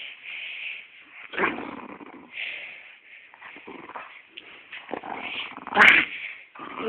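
A small spaniel growling and grumbling in short, irregular bursts while being play-wrestled, with the loudest, sharpest outburst about six seconds in.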